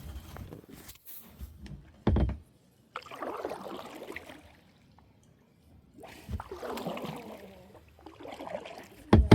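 Water sloshing and splashing in several spells, with a short loud burst about two seconds in and another near the end.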